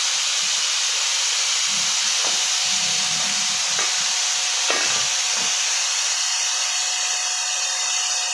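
Steady hissing noise with a faint steady tone under it and a few light knocks.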